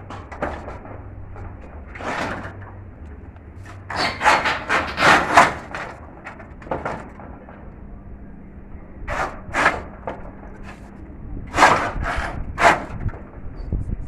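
Irregular knocks and scrapes, wood-like, coming in three clusters a few seconds apart, the loudest group about four to five seconds in.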